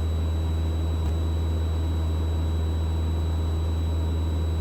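Steady low drone of a Mooney M20E's four-cylinder piston engine and propeller in flight, heard from inside the cabin.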